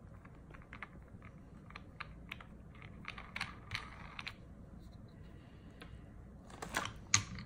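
Light, scattered clicks and taps of white nylon press dies being fitted onto a hand-lever watch case press and parts set down on a silicone mat, with a few louder clicks near the end.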